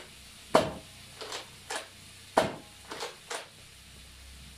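Nerf Rival Kronos XVIII-500 spring-powered blaster fired twice, each shot a sharp snap, with a few softer clacks after each as the slide is pulled back to prime for the next round.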